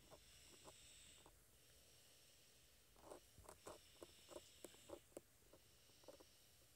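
Near silence, with faint short clicks, most of them in a quick run of about eight some three to five seconds in.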